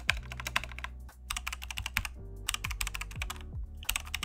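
Computer-keyboard typing sound effect in about four quick bursts of keystrokes, with a steady low background tone underneath.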